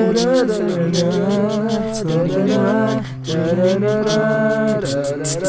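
A marching band show's music sung a cappella by one person, overdubbed into several wordless vocal parts that hold and move together as chords, with a brief gap about three seconds in.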